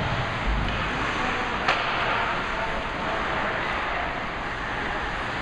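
Ice hockey rink sound: skates scraping across the ice and sticks on the puck as a steady hiss, with one sharp crack about a second and a half in.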